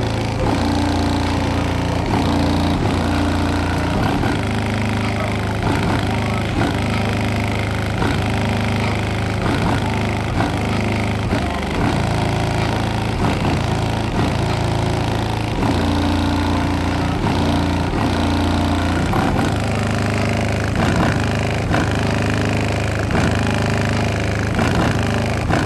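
Single 15-inch Avatar STU subwoofer on an Orion 3k amplifier playing a rap track at high volume, heard from outside the car at the trunk: sustained deep bass notes over a steady beat.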